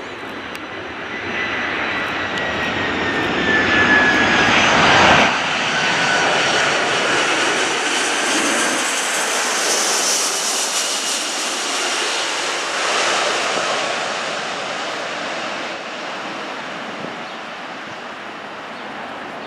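Airbus A340-300's four CFM56 turbofan engines on final approach, passing low overhead: a jet roar with a whine that falls in pitch as the airliner goes by, loudest about five seconds in, then fading slowly.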